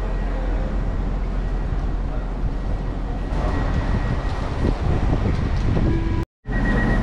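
Passenger train running: a steady rumble of wheels on the rails. Near the end it cuts off abruptly, and after a short gap a different steady hum with a thin high whine starts.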